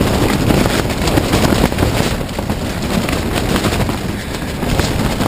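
Strong wind gusting against a tent, heard from inside: the nylon fabric and fly flap and rattle in a dense, loud, steady noise.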